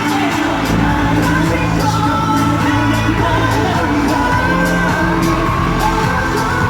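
Live K-pop concert music played loud through the arena sound system, with sung vocals over a heavy bass, and fans shouting and whooping along.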